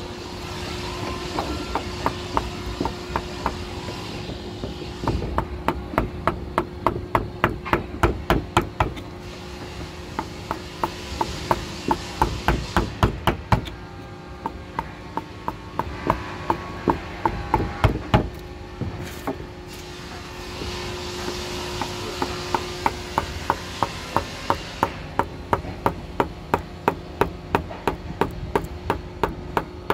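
A wood-carving chisel being struck in quick runs of sharp taps, about four or five a second, as it cuts into wood, with short pauses between the runs.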